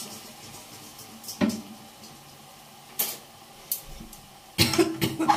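Scattered sharp clatters and clinks of metal kitchen utensils and cookware, with a louder cluster of knocks near the end.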